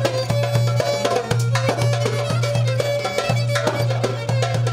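Live Turkish folk music: a violin playing a melody over hand-drum strokes and a sustained low note.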